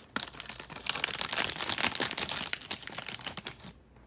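Foil blind bag crinkling and rustling in the hands, a dense run of crackles that stops about three and a half seconds in.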